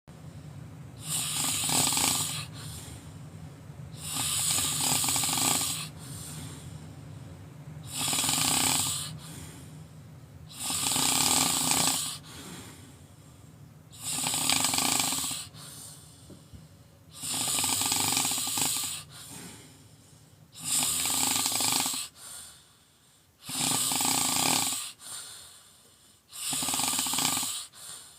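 A person snoring loudly: about nine snores in a slow, regular rhythm, one roughly every three seconds, each lasting a second or more.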